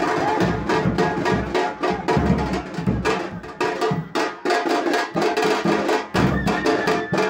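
Drums beating a fast, driving rhythm with sharp, clattering strokes.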